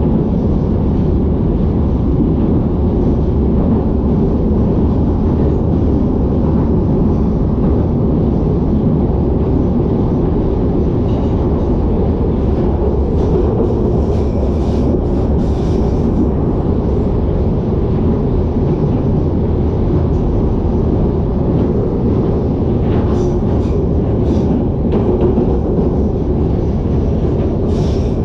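London Underground 1973 stock tube train running through a tunnel, heard from inside the carriage: a loud, steady rumble of wheels on rail. Brief high squeals cut in around the middle and again near the end.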